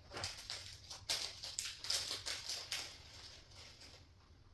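Flat-pack cabinet parts being handled: a quick, irregular run of light clicks, taps and scrapes that tails off about three seconds in.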